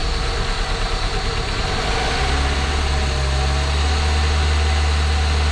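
Toyota 1ZZ-FE 1.8-litre four-cylinder engine being cranked on the starter, then catching about two seconds in and running steadily: the first start after its rebuild.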